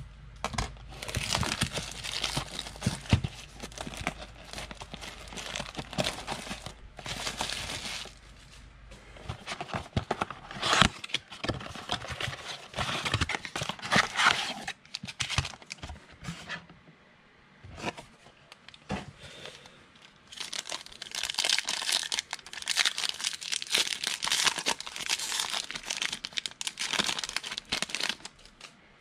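A 2019 Panini Absolute Football trading-card box and its packs being opened by hand: packaging crinkling and tearing in three bouts of several seconds each, with short quieter pauses between.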